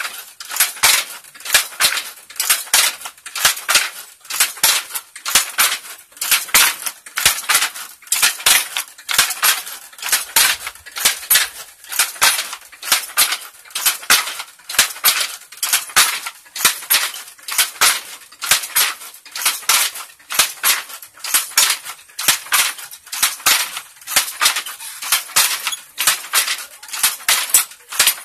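Wooden handloom weaving, its shuttle and batten clacking in a steady rhythm, one cluster of sharp wooden knocks about every second.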